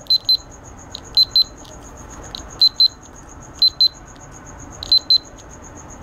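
Buzzer of a recycled remote-control fan's circuit board, wired up as a continuity tester, beeping in short high double beeps, five pairs about a second and a quarter apart.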